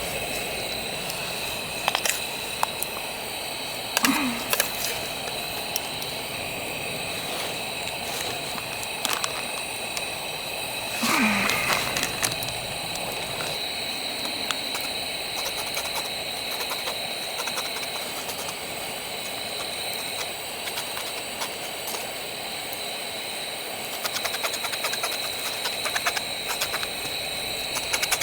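Wood campfire crackling with scattered sharp pops over a steady hiss. Two short low sounds falling in pitch come about 4 and 11 seconds in.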